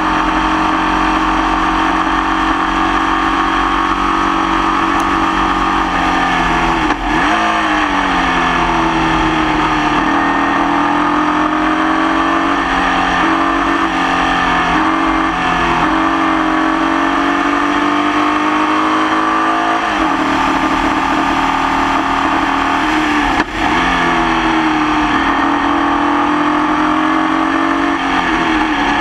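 Onboard sound of a Formula Vee race car's air-cooled Volkswagen flat-four engine at racing speed. The engine note climbs and falls again and again as the car accelerates and brakes, with a sharp gear-change break about seven seconds in and another about three-quarters of the way through. The engine is running with a nasty misfire.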